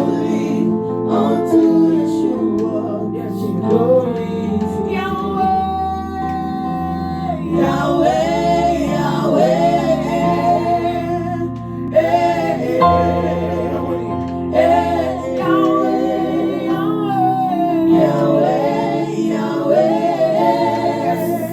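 Gospel worship music: a choir and lead singers singing a sustained, wordless-seeming melodic passage with vibrato over held keyboard chords.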